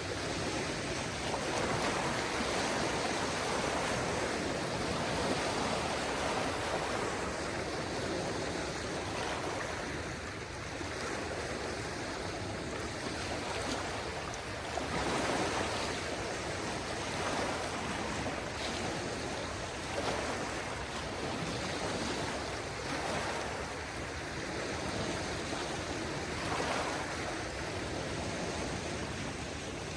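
Small waves of a calm sea washing in against the shore, a steady wash that swells gently every few seconds.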